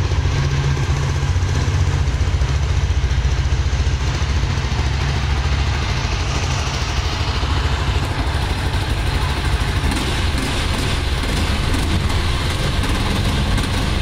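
Yezdi Scrambler's 334cc single-cylinder liquid-cooled engine idling steadily, heard at its exhaust.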